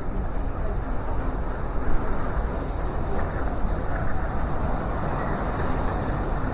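Strong wind blowing in gusts, a continuous rushing noise with a deep rumble from the wind striking the microphone, rising and falling in loudness.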